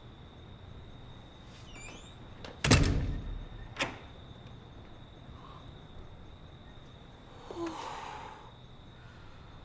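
A door: a heavy thunk about three seconds in, then a sharp click about a second later, and a softer rustle near the end.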